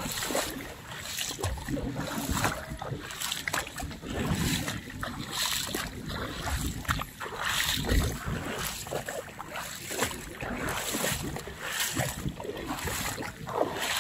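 Wind gusting over the microphone with the wash of sea water, uneven and without any steady engine note.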